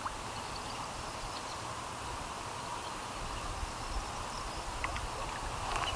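Spinning reel being cranked to retrieve a lure, a faint steady whirr over outdoor background hiss, with a couple of small clicks near the end.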